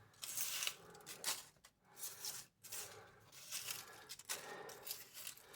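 Dry leaves rustling and crackling as they are handled and laid down, in short irregular bursts.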